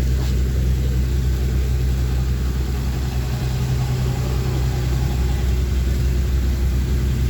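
Fishing boat engine running steadily at a low, even drone.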